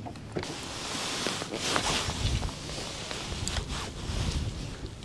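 Footsteps and clothing rustle on a boat deck right beside the microphone, with a few low thumps in the middle and a steady hiss of wind on the microphone.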